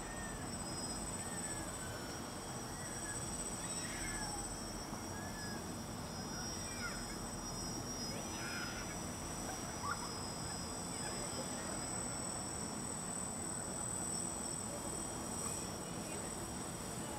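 Steady outdoor background noise with scattered short bird calls and a thin, steady high-pitched whine.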